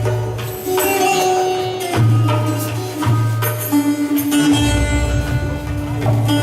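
Indian-style instrumental music with sitar-like plucked strings over a heavy bass and hand-drum beat, played for a belly-dance show.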